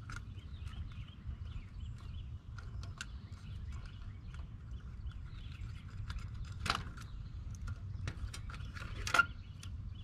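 Birds chirping on and off, over a low steady rumble, with sharp clicks and taps from wires and connectors being handled in the heat-pump condenser's control panel; the loudest click comes about nine seconds in.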